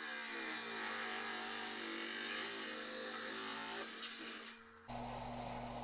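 Power rock saw cutting through a stone: a steady mechanical whine with a slightly wavering pitch and a hiss over it. It dies away about four and a half seconds in, leaving a low hum.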